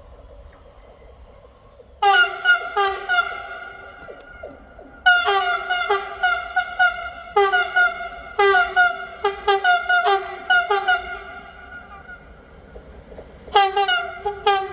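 A railway warning signal sounding in clusters of rapid, sharp ringing notes, several a second, with short pauses between the clusters.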